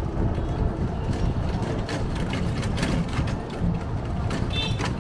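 Ride noise from a moving cycle rickshaw on a town street: a steady low rumble with scattered clicks and rattles, and a brief high tone near the end.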